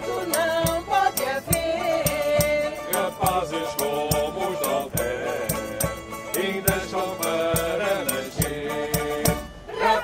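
Background music: a melody over a steady percussion beat, dipping briefly near the end before it comes back.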